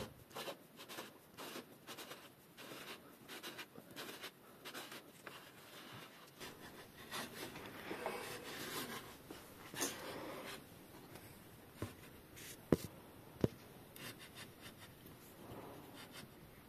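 Bottom bracket facing cutter turned by hand against a bicycle frame's bottom bracket shell, scraping paint and metal off the shell face in short repeated strokes. Two sharp clicks come about three-quarters of the way through.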